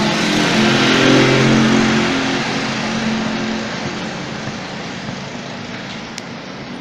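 A motor vehicle driving past, its engine note and road noise swelling over the first second or two, then slowly fading away.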